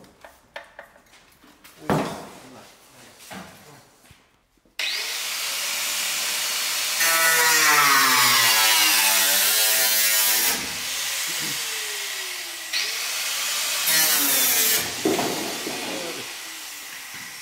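A few knocks and clicks, then about five seconds in a power tool starts cutting through the car body's sheet steel, its motor pitch dipping and rising as it is loaded; it is loudest from about seven to ten seconds in.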